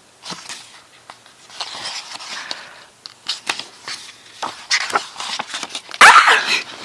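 Pages of a large photo book being turned and handled: soft paper rustling with scattered light clicks and taps, and a louder rustle about six seconds in.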